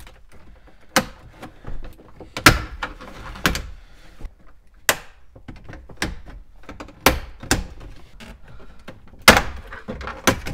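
Plastic retaining clips of a 2012 GMC Sierra's dash bezel snapping loose one by one as the bezel is pried off with a plastic panel tool and a small flathead screwdriver. About seven sharp snaps at uneven intervals, with quieter clicks between. The bezel is held on tight.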